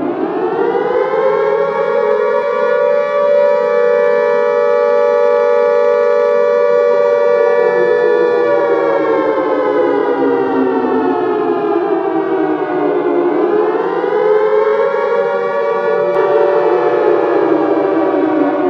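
Civil-defense-style siren tone sounding as an emergency alert alarm. It winds up to a steady pitch and holds it for several seconds, then slowly falls, dips and rises again around the middle, and sinks gradually toward the end.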